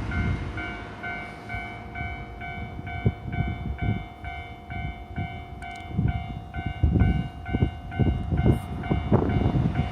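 Japanese level-crossing warning bell ringing with a rapid, evenly repeated ding, while a train rumbles over the crossing with irregular low thuds.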